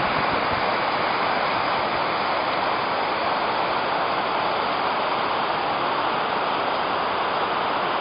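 Gullfoss waterfall on the Hvítá river rushing steadily: a continuous, even wash of falling water.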